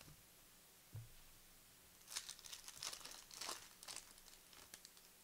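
A basketball card pack's wrapper being torn open and crinkled, a run of rustles starting about two seconds in, after a light thump about a second in.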